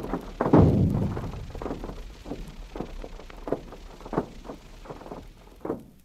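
Seismometer recording of aftershocks of the major 1952 California earthquake, speeded up on playback so they can be heard: a heavy thump with a rumble about half a second in, then a string of shorter, irregular thuds.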